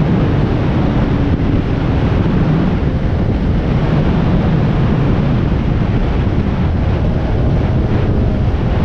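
Steady rush of wind noise on the camera microphone from a sport motorcycle riding at highway speed, with the motorcycle's engine running underneath it.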